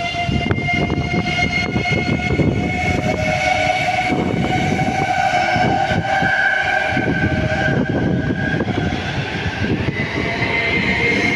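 Two red Slovenske železnice electric multiple units moving through a station: a steady rumble of wheels on the rails, with a high whining tone that drifts slightly in pitch and swells loudest around the middle.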